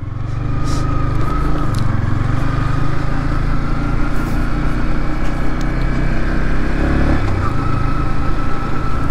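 Yamaha MT15's 155 cc single-cylinder engine running steadily while riding, the engine note changing about seven seconds in.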